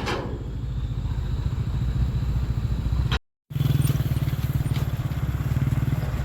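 Diesel engine of heavy road-building equipment running steadily with a low, pulsing drone. It drops out briefly a little after three seconds in and returns louder.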